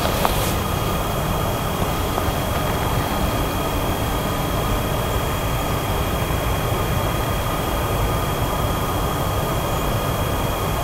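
Electric freight locomotive heading a coal train, idling or creeping slowly: a steady rumbling hum with two thin, steady high whining tones over it.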